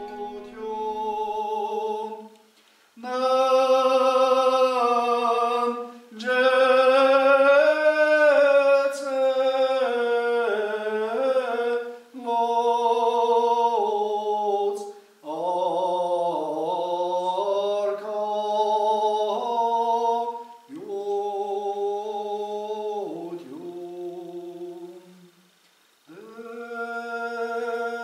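A solo man's voice singing unaccompanied chant, in long held notes that waver in pitch, sung in phrases with short breaks between them.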